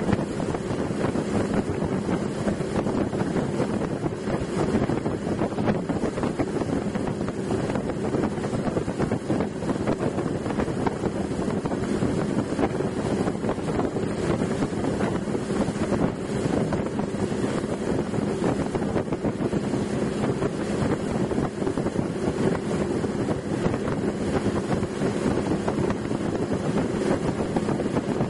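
Motorboat engine running steadily with the boat under way, a constant drone, with wind buffeting the microphone.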